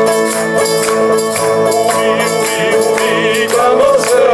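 Live song with sustained instrumental accompaniment and a steady percussion beat, with a man's voice singing from about two seconds in.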